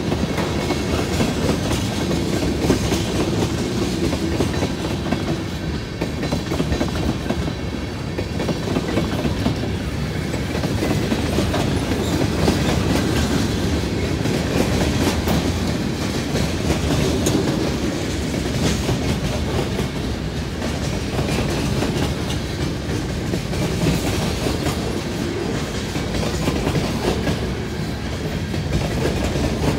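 Norfolk Southern mixed freight train's cars rolling past close by: a steady rumble of steel wheels on rail, with repeated clicks as the wheels pass over the track.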